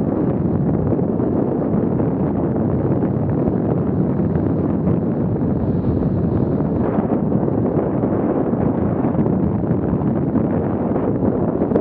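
Steady wind noise on the microphone of a camera mounted on a racing bicycle moving at about 25 mph.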